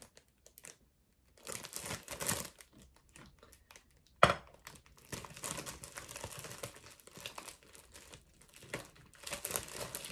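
Clear plastic bread bag being handled and pulled open, crinkling in irregular bursts that start about a second in, with one sharp knock a little after four seconds.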